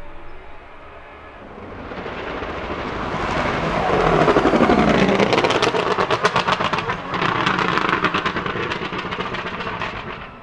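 Apollo Intensa Emozione's 6.3-litre naturally aspirated V12 heard from track-side, growing louder as the car approaches and goes past. From about halfway it fires rapid exhaust crackles and pops, with a brief dip about seven seconds in.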